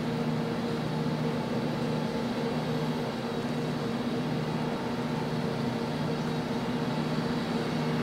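Steady low machinery hum from the Ōsumi-class transport ship JS Ōsumi (LST-4001) underway, a constant drone with several low steady tones over a noisy haze.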